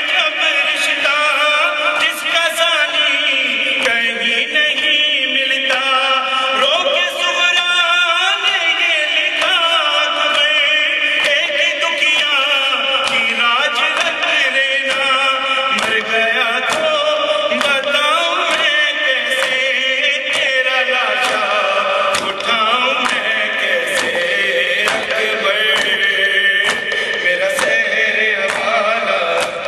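A man chanting an Urdu noha, a Shia lament, through a microphone and PA, with men's voices joining in. Sharp hand slaps of chest-beating (matam) keep time under the singing.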